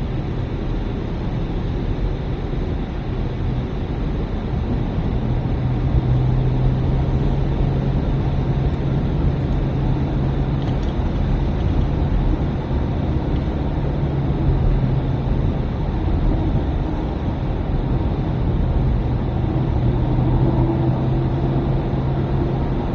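Car engine running steadily with road and tyre noise, heard from inside the cabin while driving; the engine hum comes up about five seconds in and holds.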